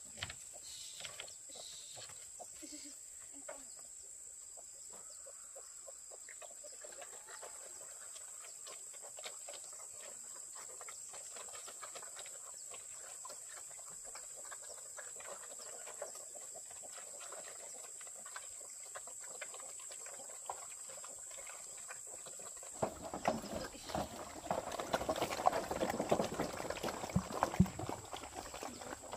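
Farm animals calling faintly over a steady high-pitched whine. About 23 seconds in, this gives way to a louder stretch of clattering and sharp knocks.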